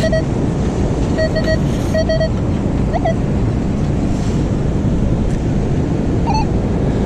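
Strong wind rumbling on the microphone over the sound of surf, with short, evenly pitched metal detector beeps in quick groups near the start and around one to two seconds in, and one more beep near the end.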